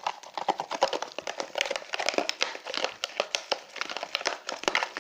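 Homemade glue slime being stirred in a basin as it thickens with activator: rapid, irregular sticky clicks and crackles.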